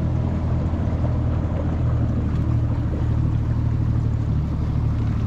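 Boat's outboard motor running steadily while the boat travels under way.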